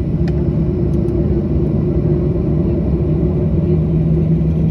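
Cabin noise of a Boeing 737-800 taxiing: a steady low rumble from its idling CFM56 engines and rolling airframe, with a steady hum that grows stronger near the end.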